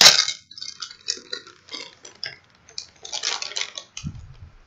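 Clear plastic bag crinkling and rustling in short irregular bursts as it is pulled open around a plush toy, loudest right at the start and again about three seconds in, with a low bump near the end.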